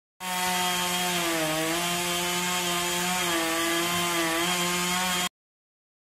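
Chainsaw running at high revs and cutting wood, its engine pitch dipping slightly as the chain bites; it stops suddenly near the end.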